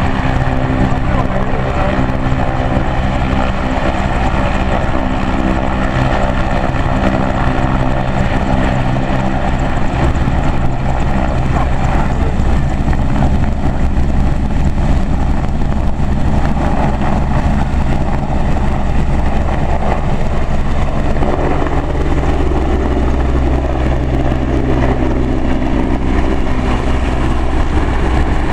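An AgustaWestland EH101 Merlin rescue helicopter's turbine engines and rotors running loudly on the ground with steady engine tones. About ten seconds in the sound changes to a heavier, lower rotor rumble as it powers up, raises dust and lifts off, climbing overhead.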